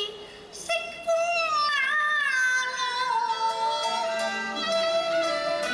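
Woman singing a Cantonese opera aria, with long held notes that slide and waver in pitch, over instrumental accompaniment. The voice drops back briefly at the start and comes in again about a second in.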